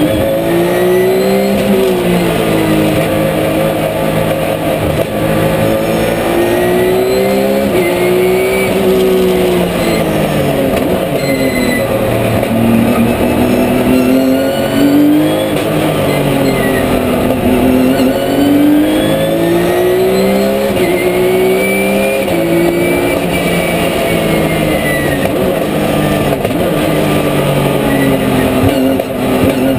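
Porsche 997 GT3 Cup's flat-six racing engine heard from inside the cockpit, repeatedly revving up through the gears and dropping back on upshifts and braking, with a higher whine rising and falling alongside.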